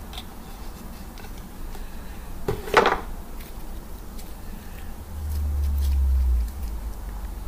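Soft homemade butter slime being stretched and squeezed by hand, with faint scattered crackles and a louder short burst about three seconds in. A low rumble comes in for about a second and a half around five seconds in.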